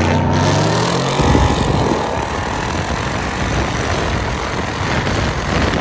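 Car engine accelerating hard: its pitch climbs over the first second, then it gives way to a loud, steady rush of engine and road noise.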